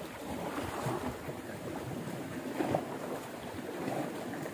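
Sea water washing against shore rocks, with wind on the microphone and one brief louder sound about two and a half seconds in.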